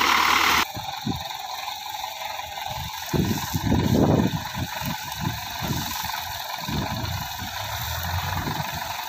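Hindustan HWD50 tractor engine running at low revs, with irregular low knocks and rattles and a louder burst of noise about three to four seconds in. A loud rushing wash at the very start cuts off abruptly after about half a second.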